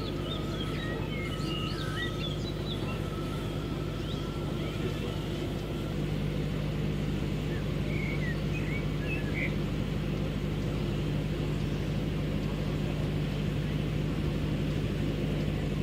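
Steady electric whir of a radio-controlled scale crawler's motor and gearbox as it creeps over rough ground; the pitch shifts about six seconds in. Birds chirp briefly near the start and again around the middle.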